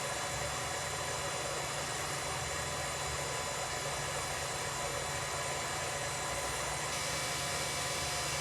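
Steady background hiss with a low hum and faint steady tones, unchanging throughout.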